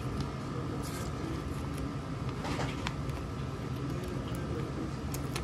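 Steady low hum of room noise with a faint steady whine, over which a plastic sticker sheet crinkles softly a few times as stickers are peeled from it, most clearly about halfway through and twice near the end.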